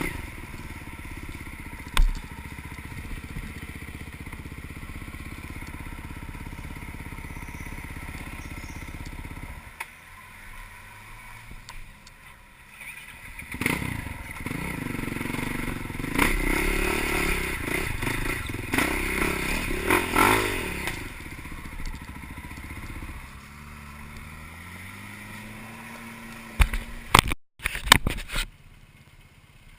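Off-road vehicle engine running, getting louder with revving for several seconds midway, with clattering and scraping. A sharp knock comes about two seconds in and a few more near the end.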